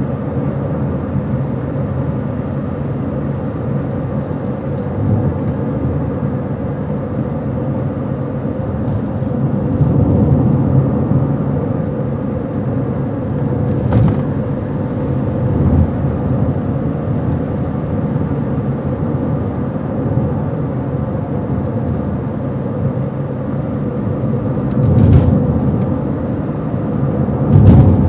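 Car driving along a road: a steady low rumble of engine and tyres, with a sharp knock about halfway through and a few louder swells, the biggest near the end.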